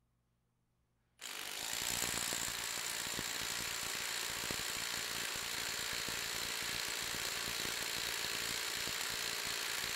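Metabo HPT WH36DBQ4 36V triple-hammer impact driver hammering steadily in reverse against a torque dyno, starting about a second in: rapid impacts with a steady high whine over them, during a 10-second maximum torque run.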